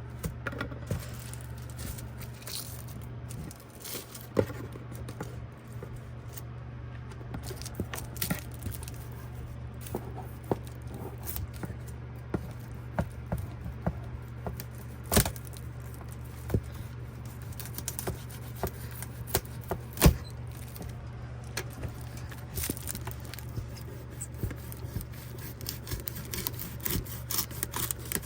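Cardboard printer box being scraped, torn and knocked as it is cut open with a knife, with many scattered clicks and knocks; the sharpest come about 15 and 20 seconds in. A steady low hum runs underneath.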